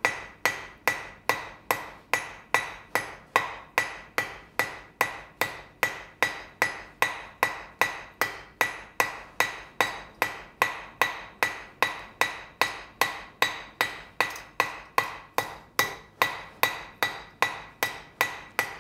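Hand hammer striking a steel bar on an anvil in a steady rhythm of about two to three blows a second, each blow with a short metallic ring. The smith is rolling the stem round, knocking down the corners of the octagon as the bar is turned under the hammer.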